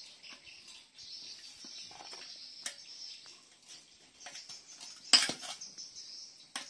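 A thin tool prying and scraping at the fuel pump cover on a motorcycle fuel tank: scattered small clicks and scratches, with one sharp clack about five seconds in, as the cover is worked loose.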